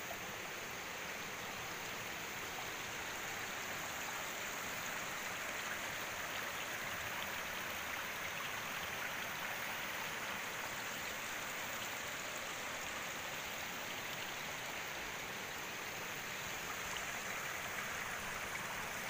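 A rocky river rushing steadily over stones and shallow rapids.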